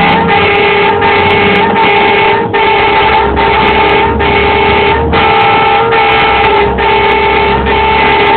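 Tow truck's warning horn sounding without a break, a loud steady chord whose upper part pulses roughly once a second, used to clear a way through stopped motorway traffic.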